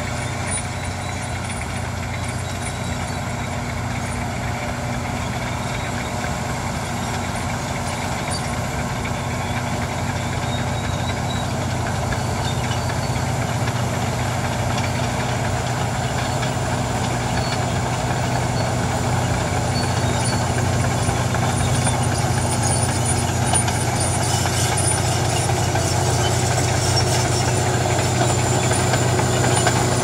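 Shantui SD22 crawler bulldozer's diesel engine running steadily under load as the dozer pushes loose dirt. The sound grows gradually louder as the machine comes closer.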